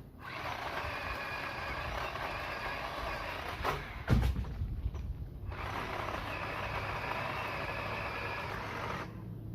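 Worx WG323 20V cordless pole saw running in two bursts of several seconds each, a steady motor-and-chain whine, with a heavy thump about four seconds in between the bursts.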